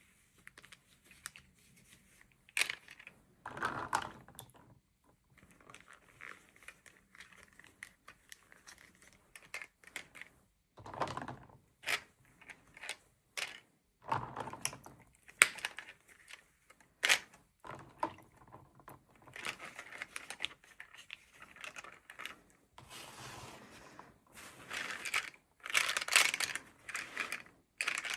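Hands unwrapping and handling toy packaging: irregular crinkling and tearing of plastic and paper with small clicks and taps.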